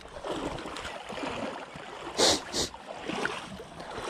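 Rustling footfalls and clothing movement of someone walking through grass on a bank. About two seconds in there are two short, loud hisses close to the microphone.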